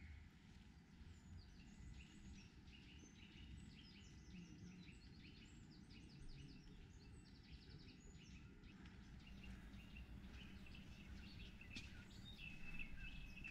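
Faint birdsong: many short, high chirps, with a longer high trill near the end, over a low background rumble.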